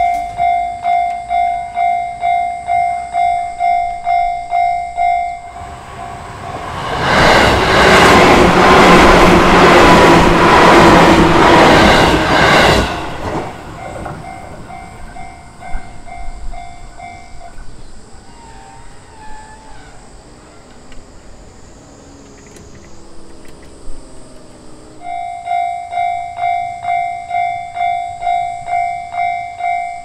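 Japanese level-crossing warning bell ringing in a steady clang, about two strokes a second. An electric train passes over the crossing from about six to thirteen seconds in, and is the loudest sound. The bell fades out soon after, then starts ringing again loudly near the end.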